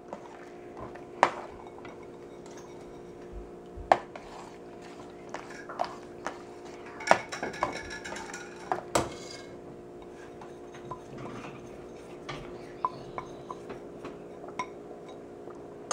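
A metal spoon stirring semolina into simmering water and vegetables in a stainless steel pot, clinking and knocking against the pot's sides at irregular intervals, with a steady hum underneath.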